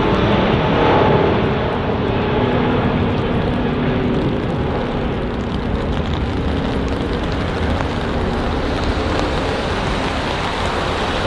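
Airbus A380's four Rolls-Royce Trent 900 turbofans at takeoff thrust during the takeoff roll on a wet runway: a loud, steady jet noise with a hiss of spray. A few engine tones stand out for the first few seconds, then blend into the steady noise.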